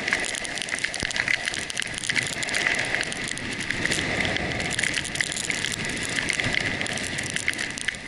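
Steady rushing hiss of sliding downhill over fresh snow at speed, full of small crackles, with wind rushing over the microphone.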